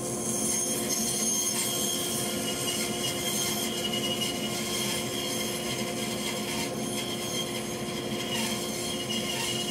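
Band saw running with its blade cutting through a dry banksia seed pod: a steady machine whine with a rasp of cutting underneath.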